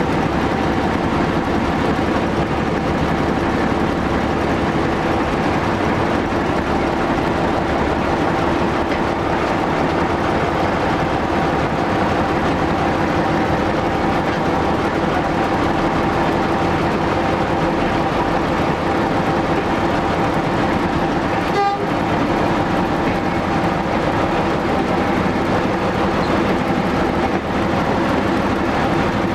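Walker diesel railmotor running along the track, heard from the front cab: a steady engine drone with constant tones over the rumble of the wheels on the rails. There is one brief knock about two-thirds of the way through.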